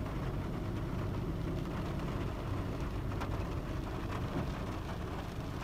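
Steady rain ambience: an even low rumble with a few faint drop ticks.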